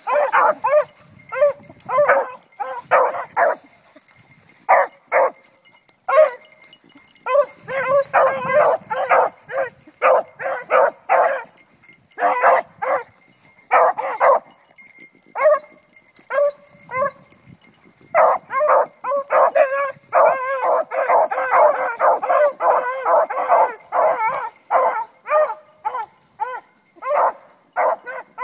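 Several beagles baying in rapid runs of short, pitched barks, the voices overlapping, with brief lulls and the densest stretch in the last third. These are hunting hounds giving tongue as they work scent into a brush pile.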